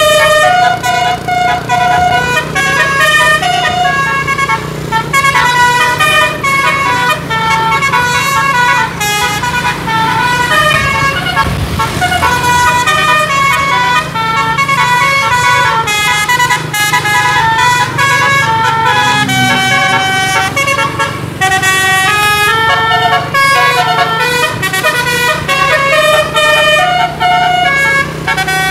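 Bus 'telolet' musical air horns, set off by a DAV horn module, playing a long custom tune of quick stepping notes, several horn tones sounding together, with no pause. A low steady hum runs underneath.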